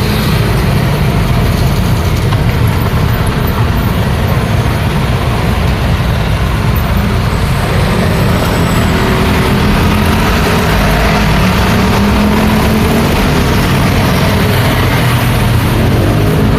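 Busy road traffic: cars and trucks passing in a steady, loud wash of engine and tyre noise, with one heavier engine note rising slightly about halfway through.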